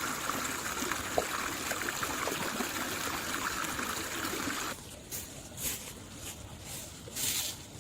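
Water trickling steadily, with small drips and ticks, which cuts off abruptly a little past halfway; after it, a quieter stretch with a few short rustling sounds.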